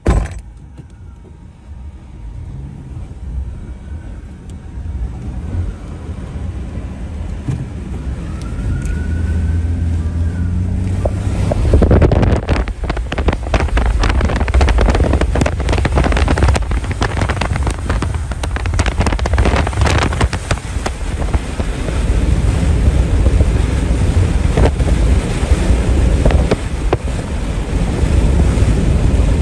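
Strong wind buffeting the microphone, a rough rumble that builds gradually and turns into heavy, irregular gusts about twelve seconds in.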